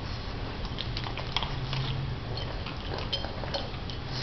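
A pug chewing dry kibble: a scatter of short, crisp crunches and clicks, over a low steady hum.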